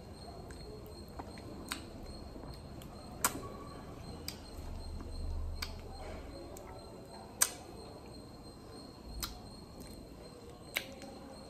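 Wet mouth sounds of someone eating juicy ripe mango: lips smacking and sucking on the flesh, with sharp wet clicks every second or two, the loudest about seven seconds in.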